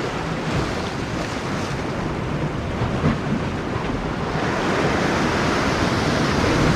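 Rough sea surf breaking and washing, with wind on the microphone; the surge swells louder about four and a half seconds in.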